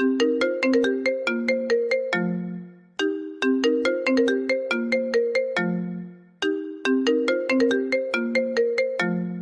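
Nokia mobile phone ringtone melody playing on repeat: a quick run of bright, struck notes that ends on a held low note and fades, then starts again, about three times.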